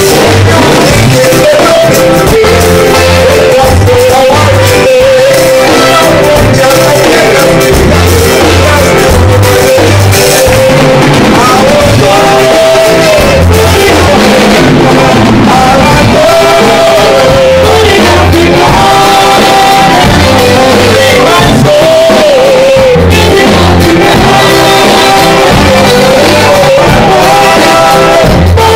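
Live band rehearsing a song at loud volume: electric bass and drum kit with a lead voice singing a melody over a repeating bass line.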